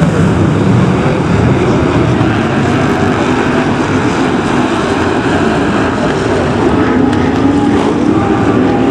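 Engines of several BriSCA F1 stock cars, big V8s, running together in a loud, steady mass of engine noise.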